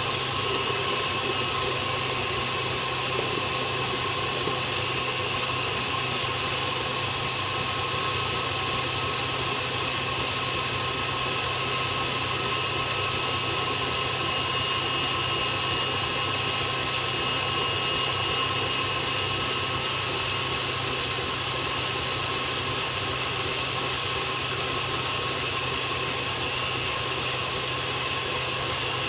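Electric stand mixer running steadily at speed with a steady whine, its wire whisk beating egg whites in a steel bowl while hot sugar syrup is poured in to make an Italian meringue.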